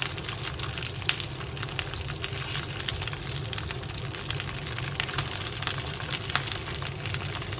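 Pork-stuffed peppers frying in hot oil in a pan: a steady sizzle with frequent crackles and pops.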